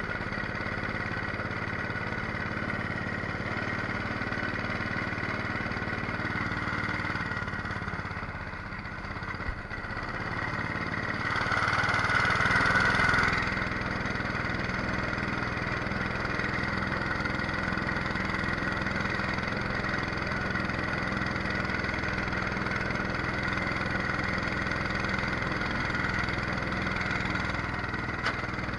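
Single-cylinder 212cc four-stroke engine driving a jet-drive pump, running steadily under way. Its sound drops for a moment about eight seconds in, then grows louder for about two seconds before settling back.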